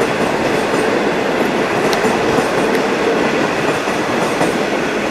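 V/Line N class diesel locomotive-hauled train passing over the level crossing, a steady noise of wheels running on the rails.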